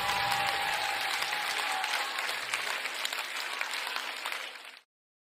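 Applause, a dense crackling patter that fades away and stops about four and a half seconds in.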